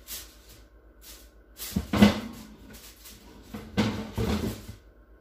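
Kitchen clatter in two bursts of knocks and rattles as things are handled, the louder about two seconds in and the second just before four seconds.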